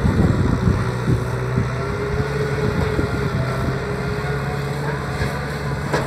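Kubota M6040SU tractor's diesel engine running steadily under load as it ploughs a field, with an even drone.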